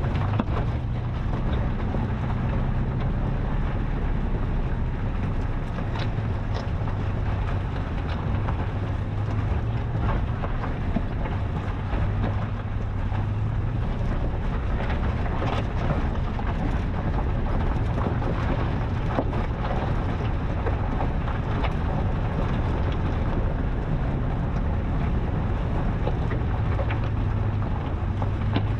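Toyota FJ Cruiser's 4.0-litre V6 running steadily as the truck crawls over a rough dirt trail: a constant low engine drone with wind noise on the microphone and a few scattered faint knocks.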